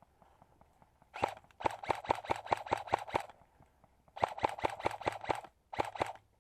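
Airsoft electric rifle firing on full auto in bursts of rapid shots, about eight a second, each burst with the gearbox whirring under the clicks. There is a brief burst about a second in, a longer one, another from about four seconds, and a short one near the end.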